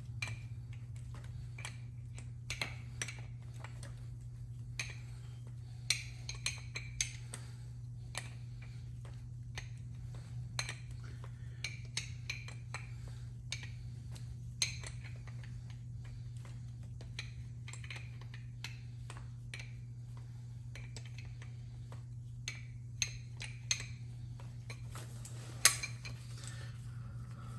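Scattered metallic clinks, clicks and knocks of hand tools and small metal parts being handled while an airless paint sprayer is taken apart, the loudest near the end, over a steady low hum.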